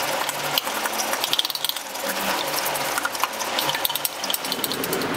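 Wooden spatula beating a raw egg in a frying pan: fast, irregular clicking and scraping of wood against the pan.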